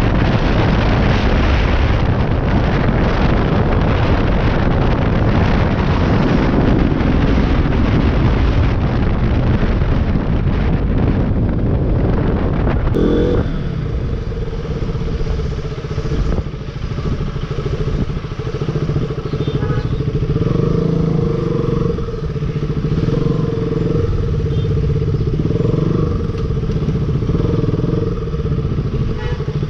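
Motorcycle running on the road. For the first thirteen seconds or so its engine is buried under a dense rushing noise; then the sound changes abruptly to a steadier engine drone with far less rush.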